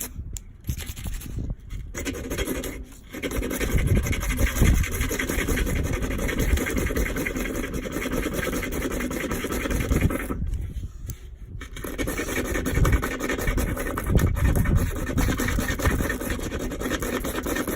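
Strong wind gusting over the microphone as a loud, rough rumble mixed with rubbing and scraping sounds, dropping away briefly about ten seconds in.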